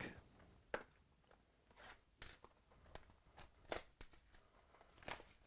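Faint tearing and crinkling of the wrapper and packaging as a sealed box of baseball cards is opened, heard as a string of short, irregular crackles and taps.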